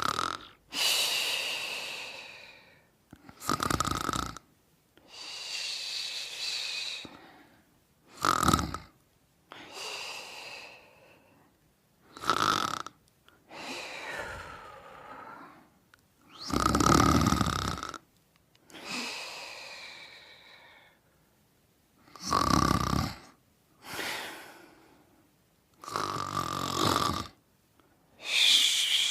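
Someone asleep, snoring in a slow, regular rhythm: each breath is a short, loud snore followed by a longer, softer airy breath, about every four to five seconds, six or seven times over.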